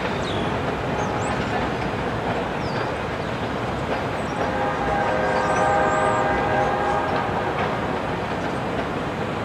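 Freight train of tank cars rolling across a river bridge with a steady rumble and clatter of wheels and cars. About halfway through, a locomotive horn sounds a chord of several notes for about two and a half seconds.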